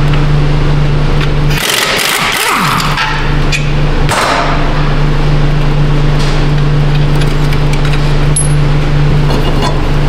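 Metal clinks and rattles of a front brake caliper bracket being unbolted and pulled off the hub, with a burst of noise from about 1.5 to 3 seconds in and another around 4 seconds, over a steady low hum.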